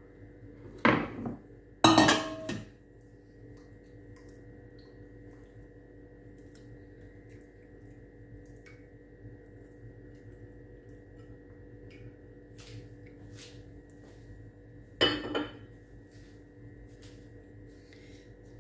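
A stainless steel bowl and dishes clattering on the kitchen counter: two knocks about a second apart, the second ringing briefly, then another clatter about fifteen seconds in. A low steady hum runs underneath, with faint small knocks.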